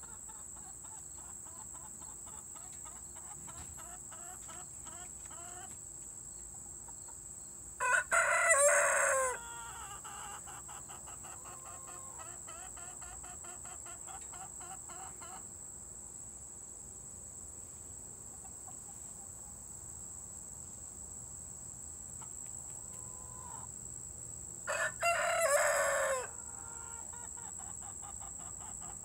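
Young Rhode Island Red rooster crowing twice, about a second and a half each and some seventeen seconds apart: short, unpractised crows of a cockerel still learning to crow, each ending on a falling note. Hens cluck softly between the crows, over a steady high insect trill.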